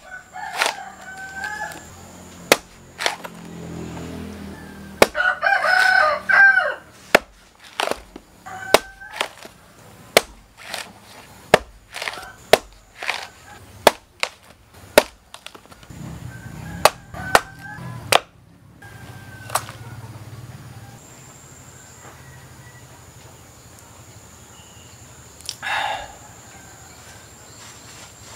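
Machete chopping the husk off a large green coconut on a wooden block: about twenty sharp blows at irregular intervals, stopping about two-thirds of the way through. A rooster crows about five seconds in, with shorter chicken calls at other moments.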